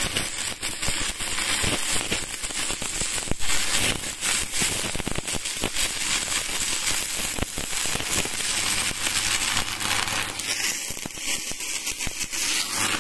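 Stick-welding arc of a 10-number electrode on a Spark 400 A DC inverter welder, steadily crackling and sizzling as the rod burns in a weld bead.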